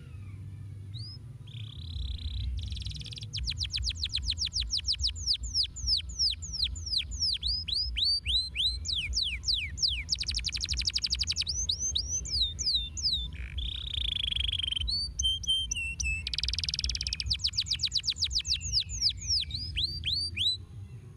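Domestic canary singing: runs of repeated downward-sweeping whistles, about four a second, broken twice by fast rattling trills and once by a short buzzy note.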